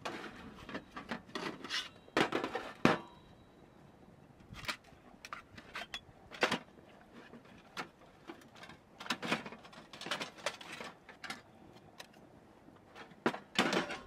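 Metal camp gear being handled: a small charcoal grill and its parts knocked and set in place, making irregular clinks, knocks and scrapes, loudest about two to three seconds in and again near the end.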